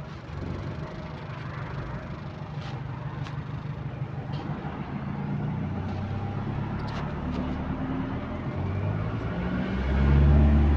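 Bus engine heard from on board, running with an exhaust leak. Its low note builds through the second half and is loudest near the end as the engine works harder.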